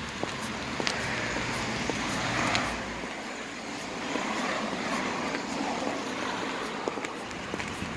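A car passing, its engine and tyre noise swelling to a peak about two and a half seconds in and then fading, over scattered clicks of high-heeled pumps stepping on asphalt.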